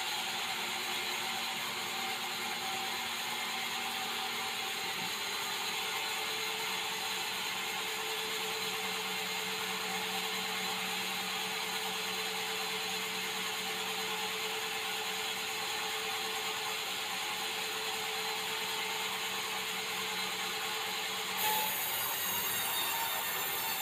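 Large sawmill band saw cutting through a red meranti beam: a steady, loud hiss of the blade in the wood with a hum underneath. Near the end the sound changes abruptly to a brighter, higher hiss.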